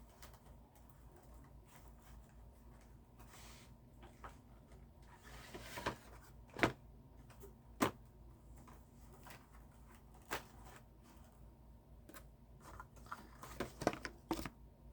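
Handling noises from diecast toy cars and their packaging being moved about: scattered light clicks and a short rustle, the sharpest clicks in the middle and a quick cluster of them near the end, over a faint low hum.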